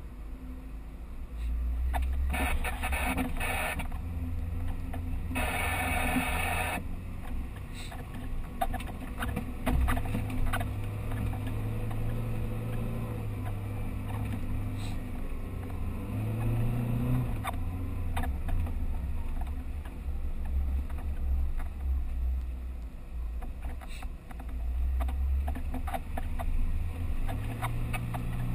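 Off-road 4x4's engine running under load, its pitch rising briefly about sixteen seconds in, with scattered knocks and rattles from the vehicle. Twice in the first seven seconds there is a short burst of rushing noise.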